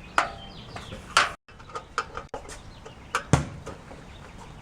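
Scattered light clicks and knocks of hand tools and metal grill parts being handled, about half a dozen, with one heavier thump about three seconds in. Faint bird chirps sound behind them.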